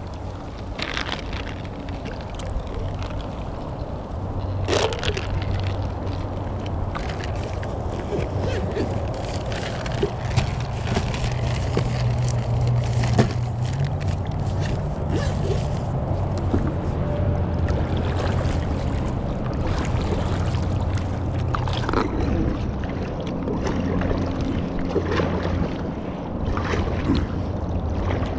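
Kayak paddles dipping and splashing as an inflatable Sea Eagle tandem kayak is paddled, with water sloshing and gurgling along the hull, over a steady low hum that shifts up in pitch about halfway through.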